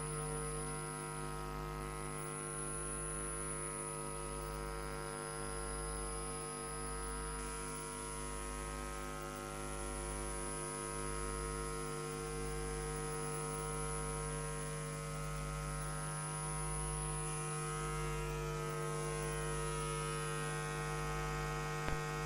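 Steady electrical mains hum, a chord of unchanging tones over a low wavering throb, on the audio of a TV feed that has lost its signal.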